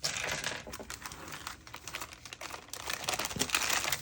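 Plastic packaging crinkling as packets of buttons are handled: a busy, crackling rustle with many small clicks.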